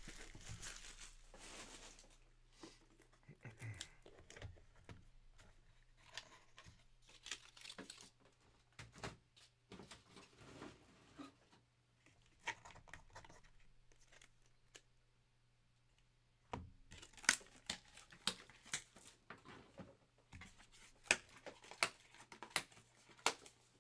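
Plastic shrink-wrap crinkling and tearing as it is stripped off a sealed trading-card hobby box, loudest in the first two seconds. Then scattered light clicks, and a run of sharp taps and knocks of the cardboard boxes being handled on the table in the last several seconds.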